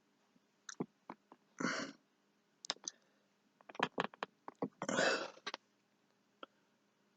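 Scattered sharp plastic clicks and knocks, with a few short rustling bursts, the longest about five seconds in: action figures being handled and posed.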